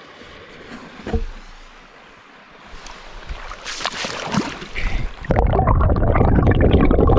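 Shallow river water splashing as a brown trout is released from a landing net and kicks away, with a sharp splash about a second in and more splashing a few seconds later. Just past five seconds in, the sound jumps to a louder, muffled rushing as the camera goes under the water.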